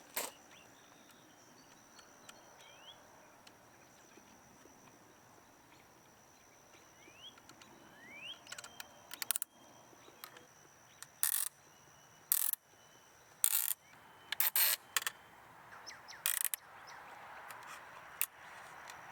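Heavy-duty zip ties being ratcheted tight: a series of about seven short zipping pulls in the second half, over quiet outdoor ambience with a few faint bird chirps early on.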